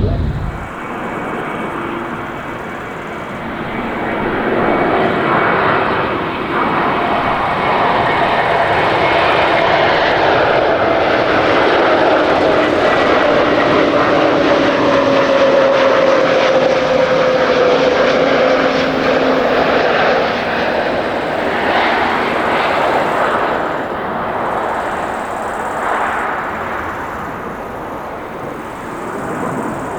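Jet airliner passing close by: its engine roar swells, holds loud through the middle with a whine falling in pitch as it goes past, then fades away.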